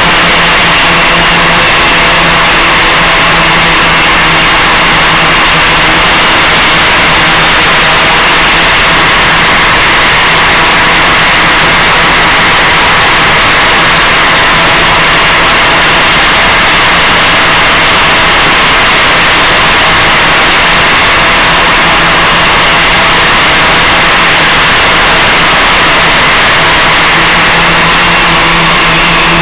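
Loud, steady hiss with a low droning hum underneath, unchanging throughout. It is the audio carried over an RC helicopter's FPV video downlink and recorded on the ground DVR.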